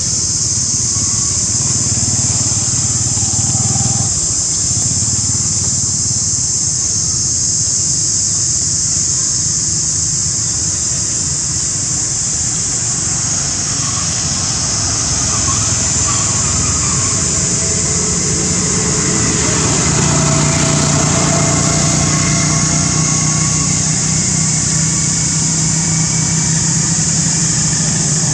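Steady outdoor background noise: a constant high-pitched drone over a low, motor-like rumble. The rumble grows a little louder about twenty seconds in.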